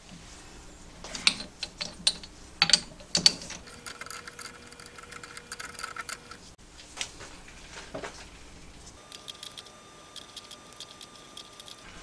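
Irregular metallic clicks and knocks from a lathe's four-jaw chuck being worked with a chuck key while a small steel gear is set into its jaws.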